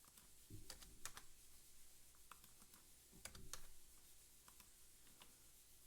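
Faint, scattered clicks of a computer keyboard and mouse, about a dozen irregular taps with a couple of soft low bumps among them.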